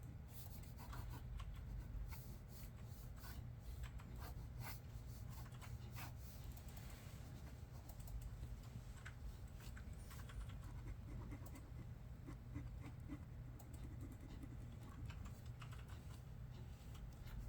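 Computer keyboard typing: irregular keystroke clicks in uneven runs, over a steady low hum.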